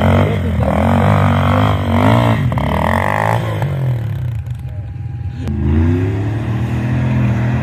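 Quad bike engine revving hard, its pitch swinging up and down as it is ridden over sand dunes. In the second half a lower, steadier engine note follows, rising slowly in pitch as a vehicle climbs the slope.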